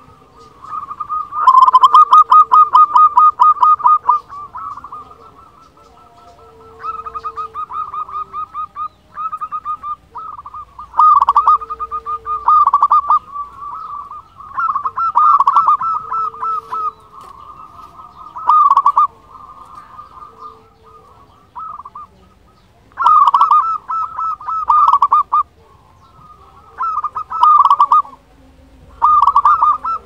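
Zebra dove (perkutut) singing: phrase after phrase of fast, rattling cooing notes, each phrase one to three seconds long with short pauses between, the loudest about two seconds in.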